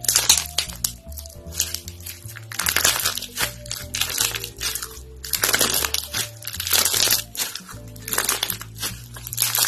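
Clear slime full of clear beads squeezed and stretched by hand, crackling and popping in short bursts every second or two, over upbeat background music.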